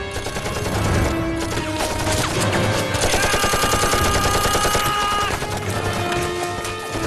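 Rapid machine-gun and rifle fire, dense and continuous, with a fast steady run of shots in the middle, over dramatic background music.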